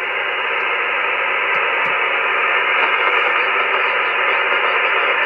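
Steady hiss of band noise from an Icom IC-706MKII transceiver receiving on the 2 m band in upper sideband, with no station coming through. The hiss is muffled, its top end cut off by the sideband filter.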